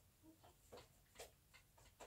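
Near silence: room tone with a few faint, soft clicks.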